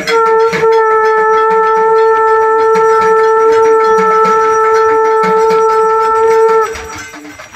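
Conch shell (shankh) blown in one long steady note, stopping about a second before the end.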